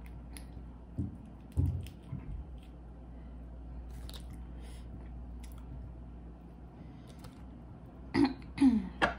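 Close-up eating sounds of boiled crawfish: scattered clicks and smacks of shells and mouth, with a couple of low thumps. Near the end come a few short voiced mouth sounds.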